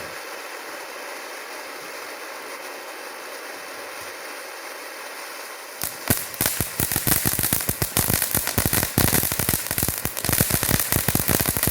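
Large California Rocket Fountain firework spraying with a steady hiss; about six seconds in it breaks into a dense, rapid crackling of many sharp pops, the crackle effect of its gold and blue sparks with silver rain.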